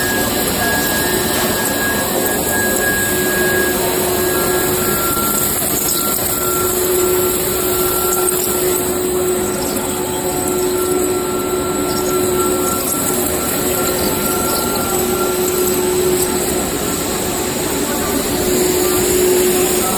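PVC profile extrusion line running: a steady, loud machine noise from the extruder, vacuum pumps and haul-off, with a constant low hum and a fainter high whine over it.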